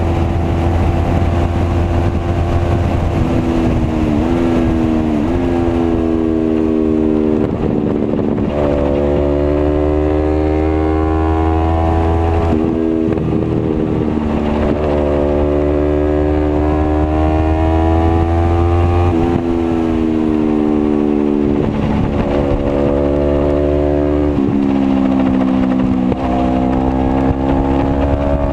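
Sport motorcycle engine under hard riding on a racetrack. The pitch climbs and falls repeatedly as the rider accelerates, brakes and changes gear, with several sudden pitch drops.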